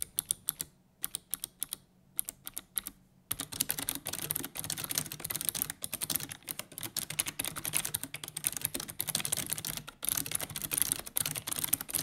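Keys pressed on a Razer Mecha-Membrane keyboard, a clicky hybrid membrane switch: for the first three seconds or so single keys are pressed one at a time, then fast continuous typing with both hands.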